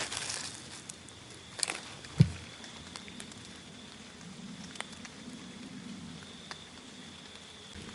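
Rain pattering and dripping on wet leaves in the woods, with a few scattered clicks of handling and one low thump about two seconds in.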